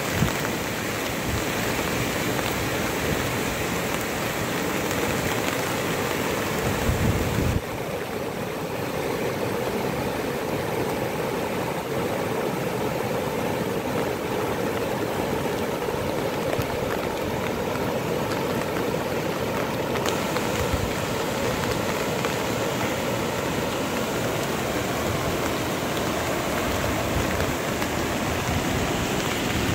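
Steady rush of water, changing abruptly about seven and a half seconds in.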